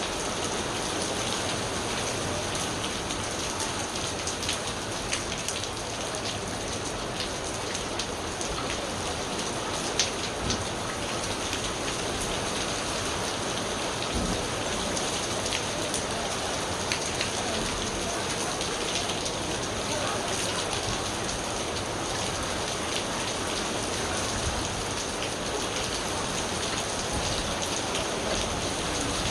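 Steady rain falling on surfaces, a continuous hiss with scattered sharper drop ticks.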